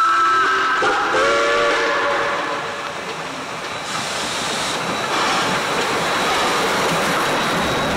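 South Australian Railways Rx-class steam locomotive sounding its whistle, a held chord of several notes broken briefly about a second in and stopping about two seconds in. From about four seconds in, the noise of the approaching locomotive and train swells as it draws close.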